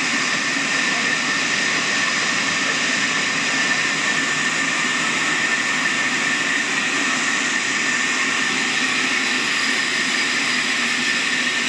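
Sawmill log band saw running steadily: an even mechanical noise with a constant high whine.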